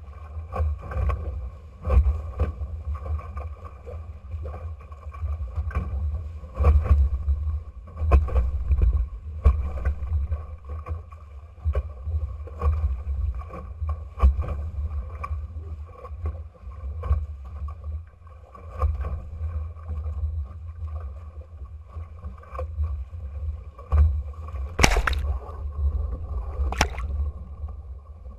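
The Futura trimaran's bow cutting through choppy water under sail: irregular splashes and slaps of water against the hull over a steady low wind rumble on the microphone. Two sharper, louder splashes come near the end.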